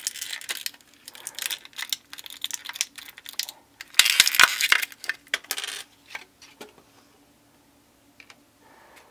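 Clear plastic packaging crinkling and small plastic building-block pieces clicking and tapping as a Mega Bloks part is worked free by hand, busiest and loudest about four to five seconds in. After about six seconds only a few light clicks are left.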